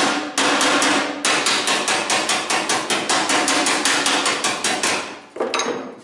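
Hazet plastic mallet rapidly tapping a sheet-metal edge against a steel block, about five even strikes a second, straightening and stretching the steel. The strikes stop about five seconds in and a few looser knocks follow.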